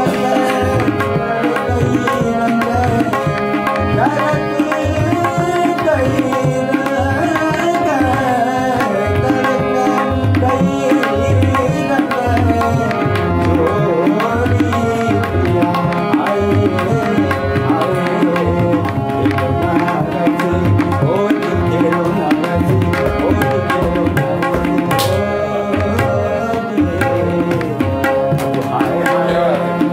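Classical Kumauni Holi song in raga Jangla Kafi: harmonium with tabla accompaniment keeping a steady rhythm, and a voice singing over it.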